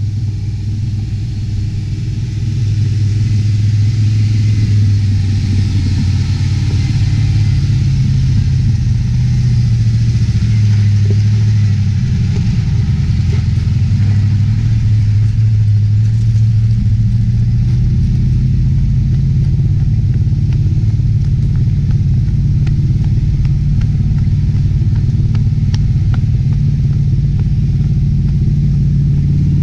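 Four-wheel-drive's engine running steadily under load on a dirt track, a low drone whose pitch rises and falls slowly, growing louder in the first few seconds.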